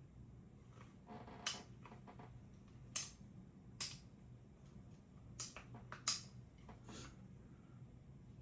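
Scattered sharp metal clicks and taps, about six in all, the loudest about three and six seconds in, from small trigger parts and pins being handled and fitted into an AR-15 lower receiver.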